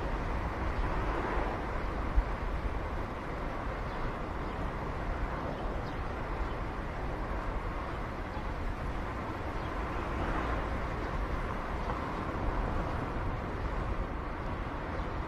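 Volkswagen Cross up! driving on a road: a steady rush of tyre and road noise over a low rumble, swelling slightly about a second in and again around ten seconds in, with a short tap about two seconds in.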